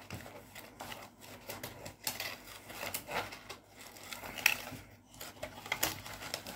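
Scattered rustles and light clicks of a plastic toy and its packaging being handled and undone, with a sharper click about four and a half seconds in.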